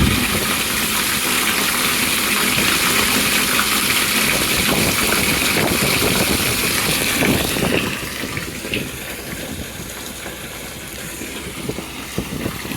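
Water rushing out under pressure with an engine running underneath; the hiss eases off sharply about eight seconds in and a quieter rumble carries on.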